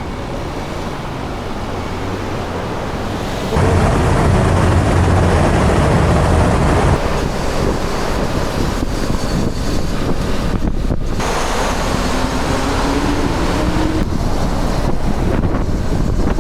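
Motorcycle riding along with heavy wind rushing over the camera microphone and the engine running underneath; the rush gets louder about three and a half seconds in.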